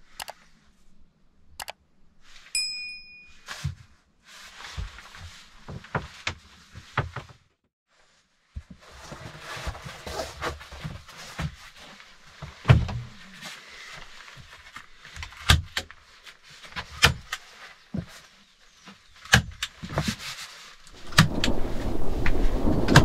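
Knocks, thunks and rustling as a ribbed mat is laid and handled on a wooden plank bed, with a short chime early on. Near the end, the steady noise of a thunderstorm with heavy rain rises sharply.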